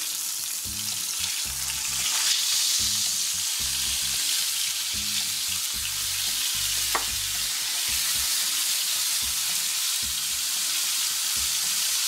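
Hamburger patties frying hot in canola oil in a cast-iron skillet: a steady sizzle as they are turned with a spatula, with a single sharp click about seven seconds in.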